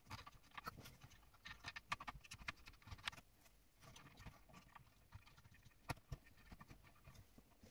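Faint handling noises: scattered small clicks, taps and rustling as fingers work among the plastic gears and parts of an opened LaserDisc player's loading mechanism.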